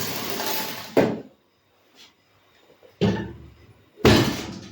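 A metal baking sheet scraping over an oven rack for about a second, ending in a clack, then two knocks from the oven door about a second apart.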